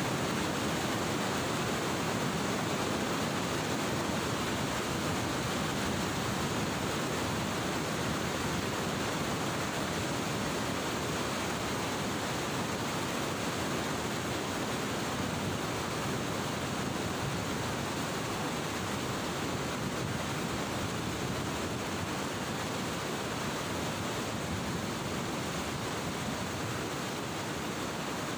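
Fast-flowing floodwater in a concrete-lined river channel below a weir, rushing and churning in a steady, unbroken wash of noise.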